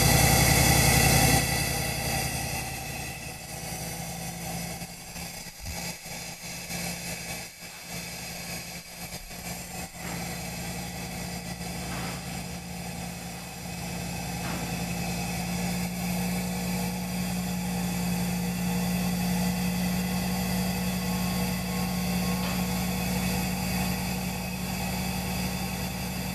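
Ultrasonic carpet-backing seamer running while it welds two overlapped layers of synthetic backing. A steady machine hum with a higher whine over it, loud for the first second, then quieter, and slowly louder again through the second half.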